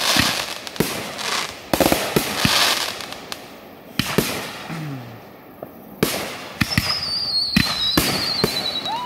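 Aerial fireworks going off: a series of sharp bangs, each trailing off in a crackling hiss. About two-thirds of the way in, a high whistle falls in pitch, twice.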